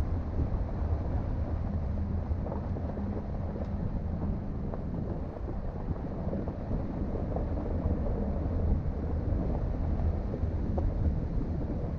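Vehicle driving slowly on a dirt road: a steady low rumble of engine and tyres, with a few faint clicks from the road surface.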